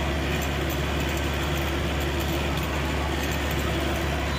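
Bus engine and road noise heard from inside the driver's cabin while driving: a steady drone with a constant low hum underneath.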